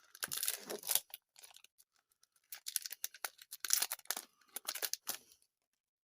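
A trading card pack wrapper crinkling and tearing as it is opened, in several short rustling bursts that stop abruptly about five and a half seconds in.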